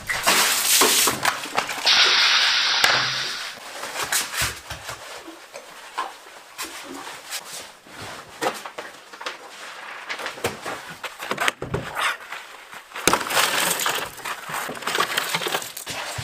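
Scattered knocks, clatters and crashing sounds, with a water splash near the start and a steady hiss lasting about a second and a half from about two seconds in.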